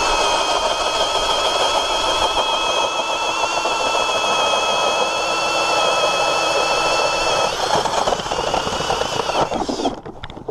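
Ridgid Octane cordless drill driving an ice auger through lake ice: a loud, steady motor-and-gear whine. The tone settles slightly lower just after the start as the auger bites, changes to a rougher sound about three-quarters of the way through, and the drill stops near the end.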